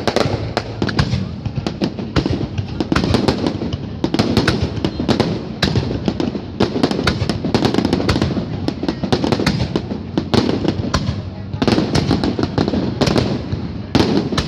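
Aerial fireworks display: shells bursting overhead in a rapid, unbroken barrage of bangs and crackles.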